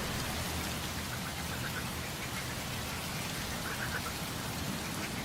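Steady hiss of water, like rain falling on a water surface, with a few faint short high notes over it.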